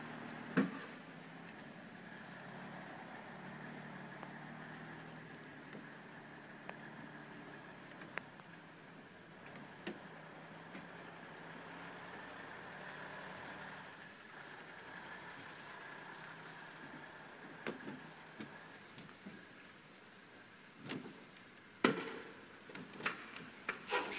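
A loaded Western Star log truck's diesel engine running steadily some way off as the truck works around a tight corner, under an even hiss. There are a few sharp clicks close to the microphone, one about half a second in and several near the end.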